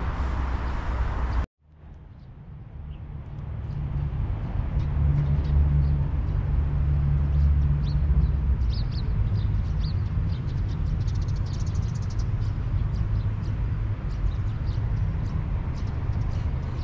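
Outdoor ambience after a brief dropout about a second and a half in: a steady low rumble, with small birds chirping repeatedly from about halfway through.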